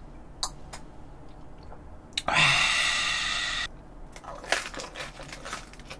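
A man's loud, breathy exhale, lasting about a second and a half, after downing a shot of liquor. Then the crunch and chewing of a raw napa-cabbage wrap in the mouth, with a few small clicks.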